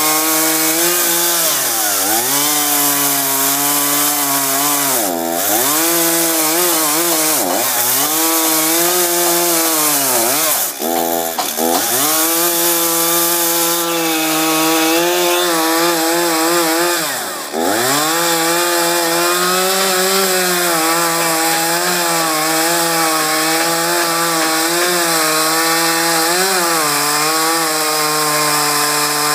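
Chainsaw running at high speed while cutting a notch into a large 8-by-8 timber beam. Its pitch dips sharply and recovers several times, about five, with the deepest drops near the middle of the cut.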